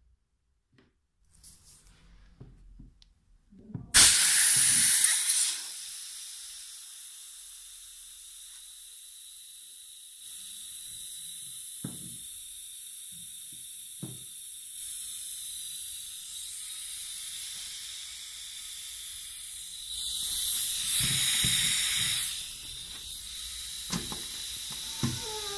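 A few faint knocks, then compressed air starts hissing out suddenly and loudly. It settles into a steady hiss that swells again for about two seconds near the end.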